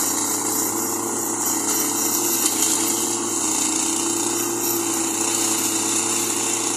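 Small 7 HP four-stroke petrol engine running steadily on a self-propelled ground-scraping weeder, its rotary blades scraping the soil and weeds as it creeps forward.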